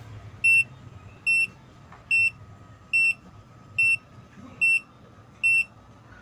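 HKS turbo timer beeping in short, high, evenly spaced beeps a little more than once a second as it counts down after the ignition is switched off. Beneath the beeps is a low hum from the Ford Everest's turbo-diesel engine, which the timer keeps idling until the countdown ends.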